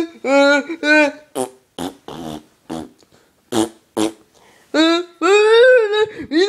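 A person's voice making silly tantrum noises for a hand puppet: a few short pitched yelps, then a string of short spluttering, raspberry-like blasts, then a long buzzing, wavering tone that rises in pitch, like a pretend tuba.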